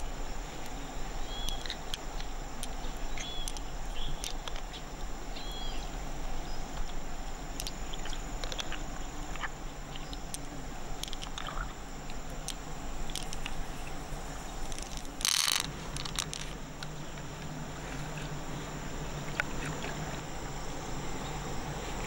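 Outdoor ambience with a steady high insect hum under it, a few short chirps near the start and scattered small clicks. About fifteen seconds in there is one brief rush of noise.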